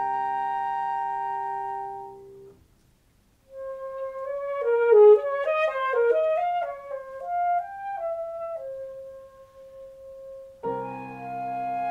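Chamber music for saxophone, clarinet, flute and piano. A held chord ends about two and a half seconds in, and after a short pause a single woodwind plays a quick run of notes up and down. It settles on a long held note before the full ensemble comes back in with a chord near the end.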